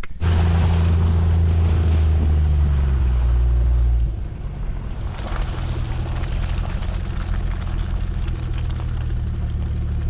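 Jeep's engine running steadily under load while it tows an SUV on a strap through snow and slush. It is loudest for the first few seconds, then drops a little and changes pitch about four seconds in.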